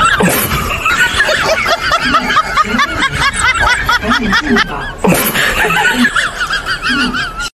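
Laughter: rapid, repeated high-pitched snickering chuckles, with some lower laughs underneath, cut off suddenly near the end.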